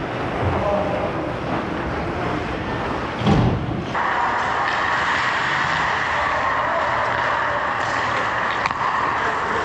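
Skates scraping and gliding on rink ice during hockey play, with a heavy thump a little over three seconds in. From about four seconds the sound switches abruptly to a steady, even hiss of indoor ice-arena noise.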